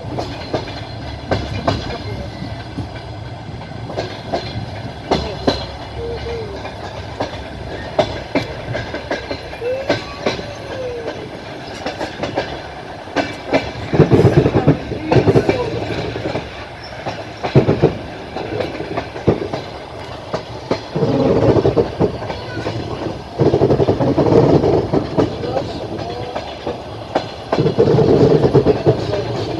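Train wheels clattering over rail joints as the train runs, heard from aboard: a steady rumble with a stream of sharp clicks, and several louder surges of rumbling noise in the second half.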